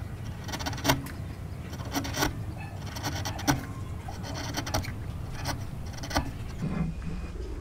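A bench chisel pushed by hand paring wood from the end wall of a mortise: a run of short scraping cuts with sharp clicks, about one a second.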